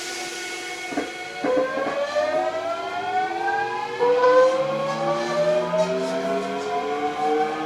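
Toshiba GTO-VVVF inverter and traction motors of a Hankyu 8000 series train under power, heard from inside the car. After a click about a second and a half in, a chord of whining tones rises steadily in pitch as the train accelerates. The tones shift and grow louder about four seconds in.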